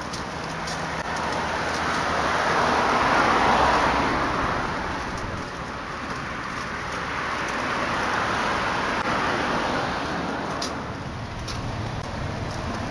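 Road traffic: cars going by, their tyre and engine noise swelling and fading twice, loudest about three and a half seconds in and again about eight to nine seconds in.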